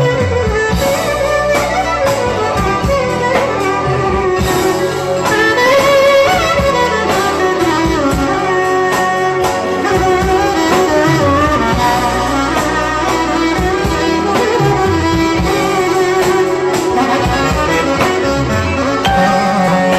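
Live band music led by a clarinet playing a sliding, ornamented melody over a steady beat.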